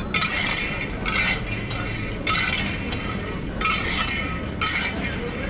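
Metal utensils clinking and scraping in short, irregular strokes, roughly one or two a second.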